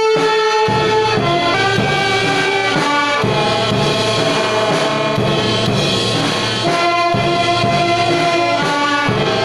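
Brass band music playing a tune of long held notes; it starts abruptly.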